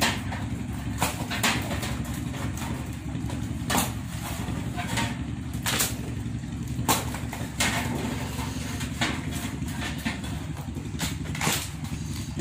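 Steady low motor hum, with irregular sharp knocks and clatters as live mud crabs are handled in plastic crates and set on a scale.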